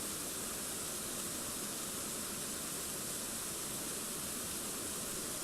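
Waterfall: water pouring over rocks in a steady, even rush of noise.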